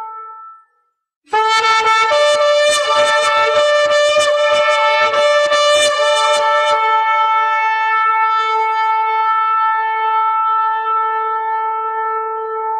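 Shofar (ram's horn) being blown. A held blast dies away in the first second, and after a short pause comes a rapid run of short broken blasts. About seven seconds in it settles into one long held note.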